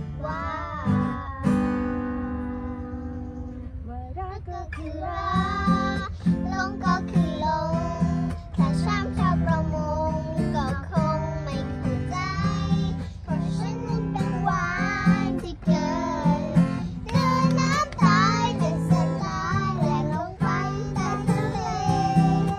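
Young children singing a pop song together, accompanied by a strummed acoustic guitar. The singing drops out briefly about two seconds in while the guitar carries on.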